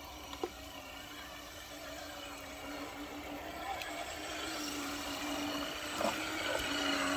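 Electric motors and geared drivetrains of RC scale crawlers whining steadily while the trucks drive through a shallow stream, with water swishing around the tyres; it grows louder as the trucks come closer.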